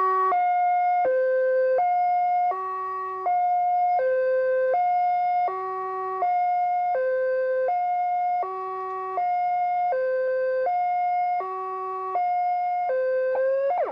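Electronic siren sounding a repeating sequence of steady tones that step between a few pitches about every 0.7 s, the pattern coming round about every three seconds, then cutting off abruptly near the end.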